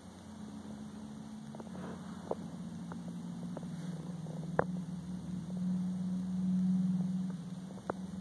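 Siberian kitten purring very loudly and steadily as its head and cheek are stroked, the purr swelling louder about six to seven seconds in. A few sharp clicks cut through it.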